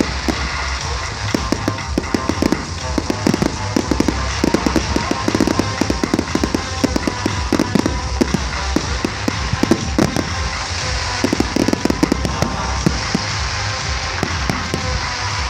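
Fireworks display going off: a dense run of bangs and crackles, with music playing underneath.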